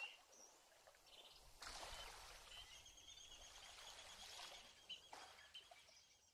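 Faint water-like swishing and bubbling in slow swells, with faint thin high tones in the middle: the sound effect under an animated logo of rising bubbles.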